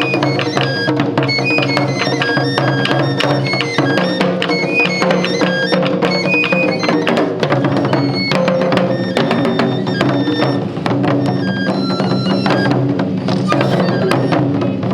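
Japanese taiko drum ensemble playing a dense, driving rhythm, with a high flute playing short notes over a steady low drone.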